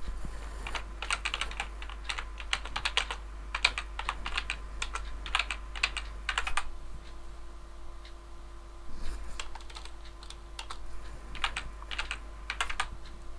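Typing on a computer keyboard: two runs of quick keystrokes with a pause of about two seconds between them.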